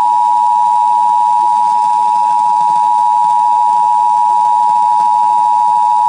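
Emergency Alert System attention signal: the standard two-tone alarm (853 and 960 Hz sounded together), coming from an FM radio through stereo speakers. It starts abruptly and holds steady and loud, announcing a Required Weekly Test alert that is about to be read.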